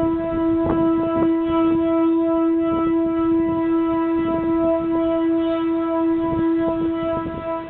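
Whelen WPS electronic siren sounding a single steady, unbroken tone: the Danish all-clear signal. Irregular low thumps run underneath it.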